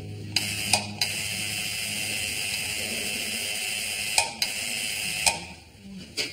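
Electric doorbell ringing in three presses: a short ring, a long ring of about three seconds, then another short ring, each starting and stopping with a click. A single click follows near the end.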